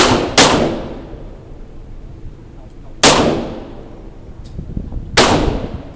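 Handgun-type gunshots at an indoor shooting range: two quick shots at the start, then single shots about 3 seconds and 5 seconds in, each followed by a short echoing decay off the range walls.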